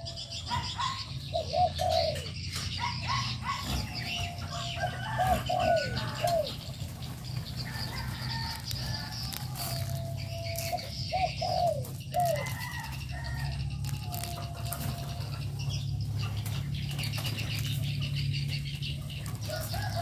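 Spotted doves cooing: short phrases of three or four rising-and-falling notes, some ending on a held note, repeated every few seconds by several birds, with smaller birds chirping higher above them.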